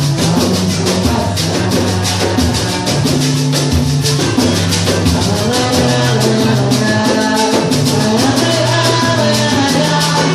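A batucada samba percussion ensemble playing live: drums and shakers keep a fast, dense rhythm, with a melody and bass line moving over it.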